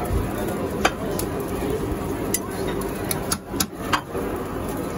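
Metal serving tongs clicking and clinking against a ceramic plate as doner meat and sides are plated, several sharp clicks over a steady kitchen din.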